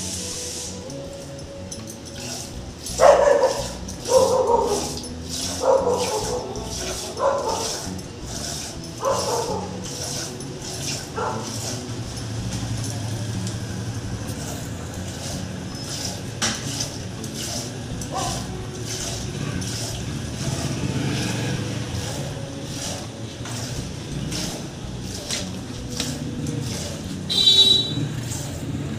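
A dog barks about six times in the first dozen seconds, over a steady rhythm of milk squirts hitting a steel pot as a cow is milked by hand. There is a short high-pitched call near the end.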